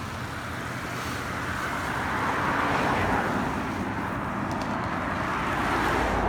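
Cars passing on a road: tyre and engine noise swells up and fades, with a second pass building near the end.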